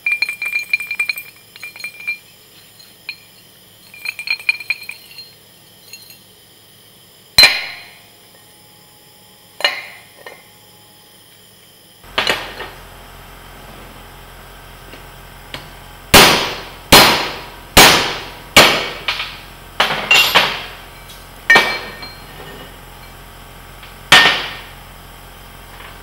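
Hammer blows on a steel flail-mower roller end cap, knocking the worn stub shaft out of its hole after the welds have been gouged away. Light metallic clinking at the start, a couple of single blows, then a run of about ten ringing strikes roughly a second apart.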